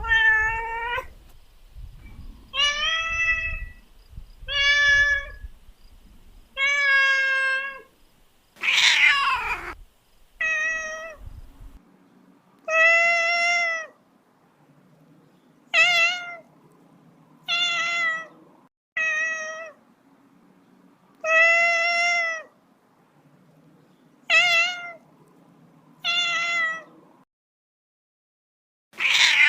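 A kitten meowing over and over: about fourteen short, separate meows spaced a second or two apart, one of them louder with a falling pitch.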